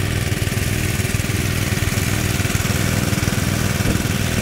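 Small engine driving a water pump, running steadily at a constant speed.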